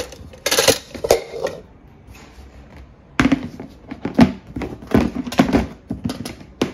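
Clear plastic storage bin being handled, with a few knocks and clatter. Then comes a run of plastic thunks and clicks as its grey lid is fitted on.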